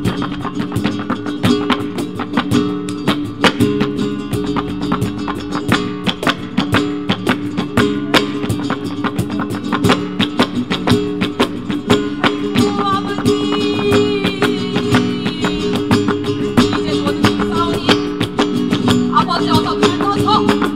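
Flamenco-style ensemble music with guitar, driven by a dense stream of sharp percussive strikes over sustained low tones. About twelve seconds in, a wavering melodic line with vibrato comes in above it.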